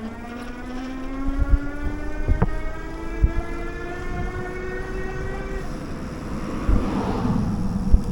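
A vehicle engine running and accelerating, its pitch rising slowly for about five seconds, then dropping away. A rushing swell follows near the end as a vehicle passes, with low wind buffeting on the microphone.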